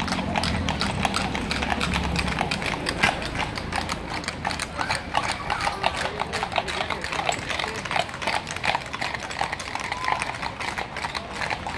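Hooves of several carriage horses clip-clopping on asphalt as a line of horse-drawn carriages passes, many overlapping hoofbeats in an uneven, continuous patter.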